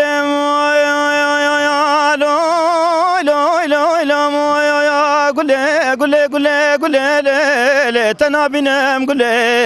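A Kurdish dengbêj singer's unaccompanied male voice, amplified through a handheld microphone. He holds one long steady note for about two seconds, then moves into wavering, ornamented melismatic phrases.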